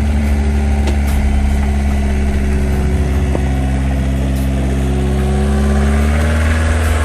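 Excavator's diesel engine running steadily under working revs, its pitch sagging slightly about five seconds in, with a few light clicks from the machine.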